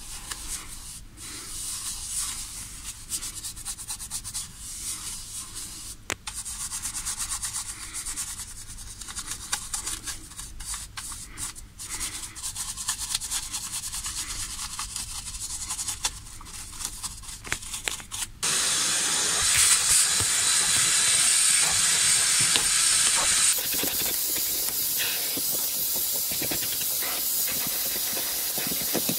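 A soft detailing brush scrubbing cleaner foam on a car's steering-wheel hub in quick, bristly strokes. About two-thirds of the way in it gives way to a vacuum cleaner nozzle running steadily and louder over the floor carpet.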